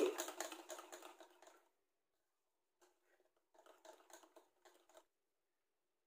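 Faint, quick ticking of a wire whisk against a plastic mixing bowl as dry flour and cocoa mix is whisked into brownie batter. One run of ticks fades out over the first second and a half, and another comes from about three to five seconds in.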